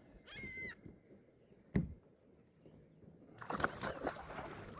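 A gull calls once near the start, a short run of harsh, mewing notes. About two seconds in comes a sharp knock, and near the end a second-long rush of noise.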